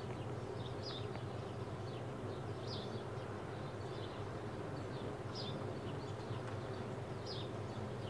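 Faint, short, high chirps every second or two over a steady low hum and room noise.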